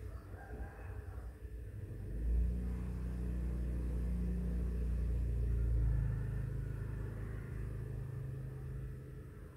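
Low engine rumble of a passing motor vehicle, swelling about two seconds in, dropping in pitch around six seconds, then fading away.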